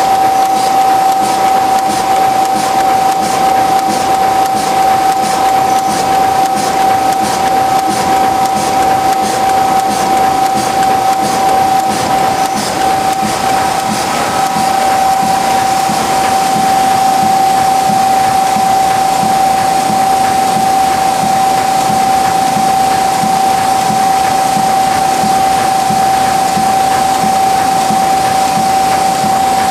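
A Tymi Ustar-102 sheet-fed UV spot coater running in production: a steady, loud mechanical whir with a strong steady whine over it. For roughly the first half, faint regular clicking about twice a second runs through it.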